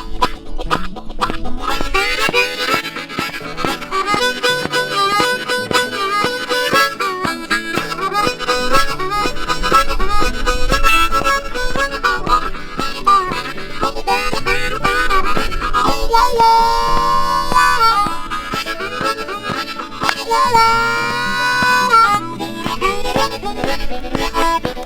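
Solo blues harmonica playing a melody full of bent notes, then twice holding a chord with a fast warbling vibrato near the end.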